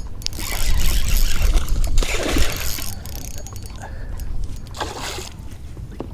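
Wind buffeting the microphone in a continual deep rumble, with three short rushes of hissing noise.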